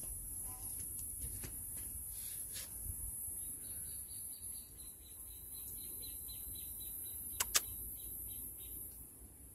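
A bird calling with a run of short, high chirps repeated about three times a second, starting a few seconds in, over a steady high hiss. Two sharp clicks come in quick succession near the end.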